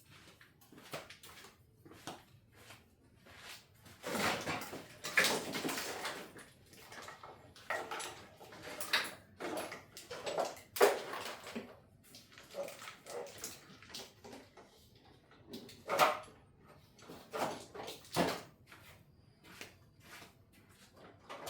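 Wiring harness being worked loose by hand: irregular plastic clicks, knocks, scrapes and rustling as wires and connectors are pulled and unclipped, with a few sharper knocks.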